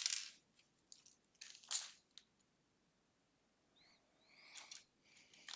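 Small plastic LEGO pieces clicking against each other and the table as they are picked out and set down while sorting. There are a few sharp clicks in the first two seconds and again near the end, and a soft scrape about four seconds in.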